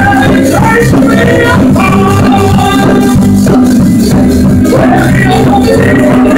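Music: an instrumental passage of a gospel song, with melodic instruments over a steady percussion beat.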